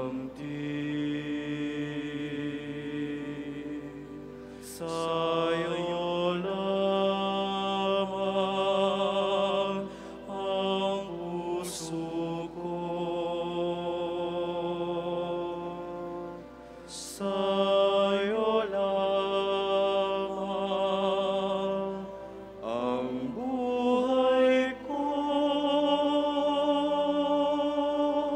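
Slow, chant-like sacred music: long held notes in phrases several seconds long, with brief pauses between phrases.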